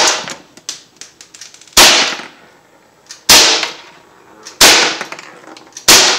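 Umarex Glock 19 Gen 3 non-blowback CO2 BB pistol firing steel BBs: four sharp cracks about one and a half seconds apart, with fainter ticks between the shots.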